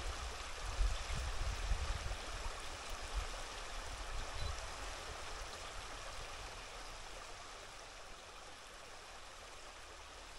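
A small moorland stream running, a steady rush and trickle of water. Low rumbles and thumps come over it in the first few seconds, then die away.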